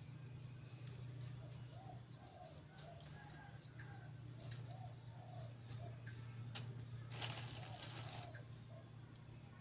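Birds calling: a string of short arched notes repeating several times a second over a steady low hum, with scattered sharp clicks and a brief hissing rustle about seven seconds in.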